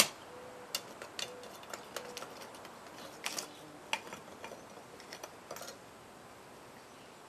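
A sharp tap, then scattered light clicks and clinks of a screwdriver and pliers against a cooled thermite-steel casting, its slag and the firebrick mold as the slab is pried loose. The clicking stops a little under six seconds in.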